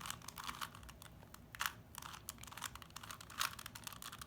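3x3 Rubik's cube being turned by hand: irregular runs of plastic clicking and scraping as the layers rotate, with a couple of louder turns.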